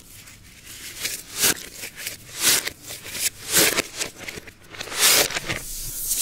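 Tissue paper being unwrapped and crumpled by hand: a run of sharp paper crinkles and rustles, about five or six louder ones at uneven intervals.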